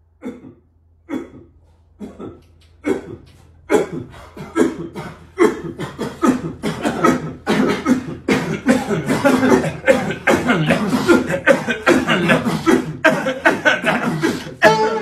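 Beatboxing: mouth-made drum sounds, starting as single beats about a second apart and building from about four seconds in into a fast, dense groove.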